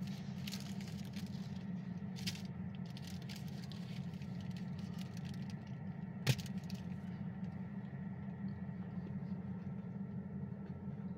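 Steady low hum of an idling engine, with scattered light clicks in the first few seconds and one sharp click about six seconds in.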